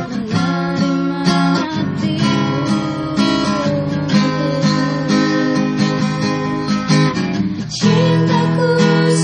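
Acoustic guitar strumming a run of chords in a steady rhythm.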